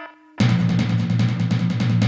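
An electronic beep ends right at the start. About half a second in, loud drum-heavy intro music starts suddenly, with rapid drum hits over a steady low bass.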